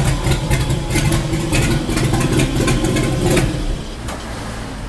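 Modified Chevrolet Opala's engine idling with a loud, uneven exhaust note, a little quieter near the end.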